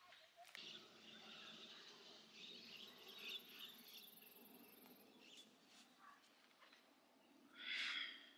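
Faint outdoor background with birds chirping, and one brief louder burst of sound near the end.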